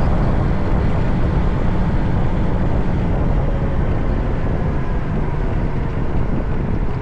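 Riding a motor scooter: wind buffeting the microphone over the steady running of the scooter's engine and road noise.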